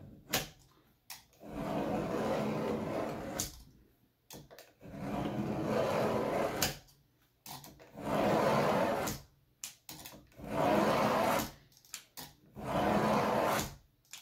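Utility knife scoring a Palisade grout-free wall tile along a metal straightedge: five long scratching strokes of a second or two each, with short pauses between.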